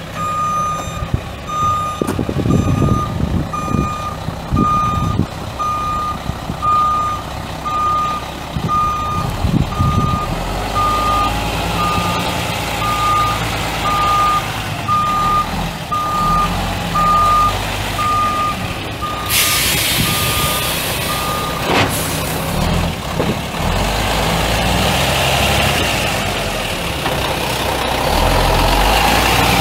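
A dump truck's backup alarm beeping about once a second as it reverses, over the steady running of its Mack E7 12-litre inline-six turbo diesel. About two-thirds of the way through, the beeping stops, with a couple of seconds of hiss and one sharp clunk, and the engine keeps running.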